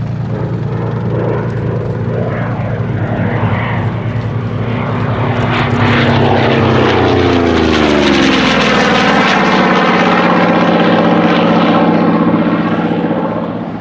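Goodyear FG-1D Corsair's Pratt & Whitney R-2800 radial engine and propeller making a flying pass. The engine grows louder about six seconds in, and its pitch falls as the aircraft goes by.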